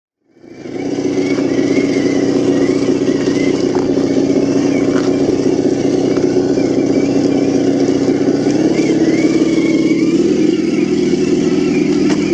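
Electric motors and geartrains of RC scale crawler trucks whining steadily as the trucks crawl over rocks. The pitch steps up twice near the end.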